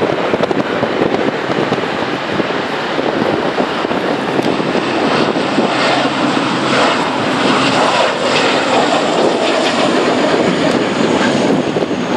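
Twin-engine turboprop airliner at takeoff power. Its engines and propellers run loud and steady as it rolls down the runway, lifts off and climbs away.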